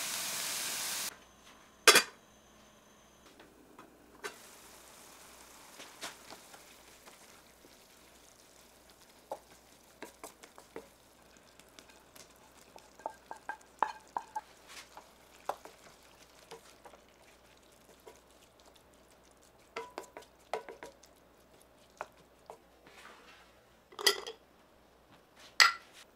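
Food sizzling in a frying pan, cutting off about a second in, then a sharp knock. After that come scattered light scrapes and clicks of a wooden spatula stirring vegetables in a stainless steel pan, with two louder knocks near the end.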